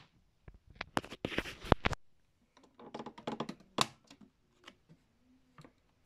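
Sharp plastic clicks and knocks from handling a Miele W1 toy washing machine as its round door is unlatched and swung open. There is a quick run of clicks in the first two seconds and a second cluster about three seconds in.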